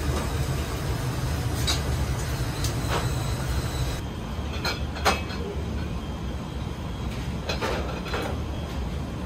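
Steady low rumble of a commercial kitchen with scattered clinks and knocks of ceramic bowls and trays being set down and moved on a steel counter, the sharpest knock about five seconds in.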